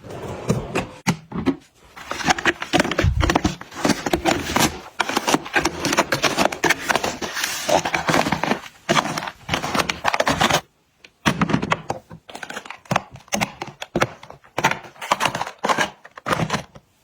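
Small items and packaging being handled and set in place: a dense run of quick clicks, taps and crinkling, with a short pause about two-thirds of the way through.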